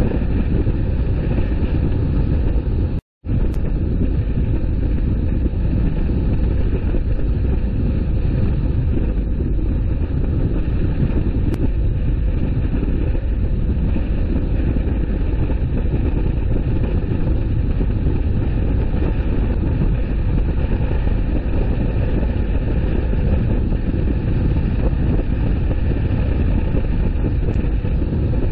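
Steady low rumble of a car driving along a road, tyre and engine noise, with a brief drop-out to silence about three seconds in.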